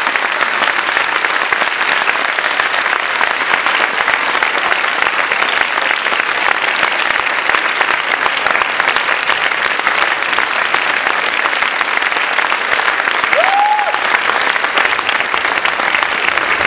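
Audience applauding steadily: dense, continuous clapping from a theatre crowd. One short rising-and-falling call rises above it near the end.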